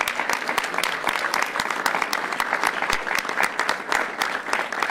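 Crowd applauding: many people clapping at once in a dense, steady patter.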